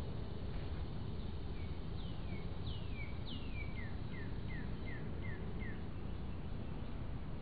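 A songbird singing a phrase of downward-slurred notes: a few long slurs, then a quicker run of about six short, lower ones that ends about six seconds in. A steady low hiss runs underneath.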